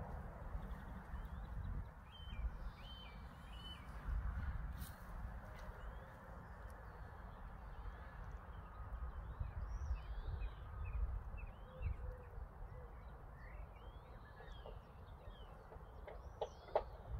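Small birds calling with scattered short chirps and quick up-and-down notes over an uneven low rumble of wind on the microphone.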